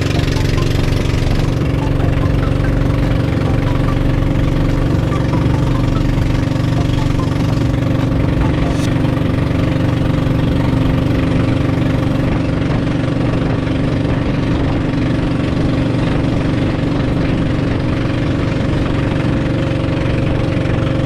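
An engine running steadily at an even speed, a constant low drone that does not change.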